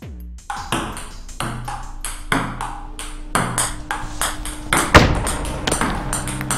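Electronic soundtrack: sharp ping-like synth hits in quick, uneven succession over sustained low tones, with the loudest hit about five seconds in.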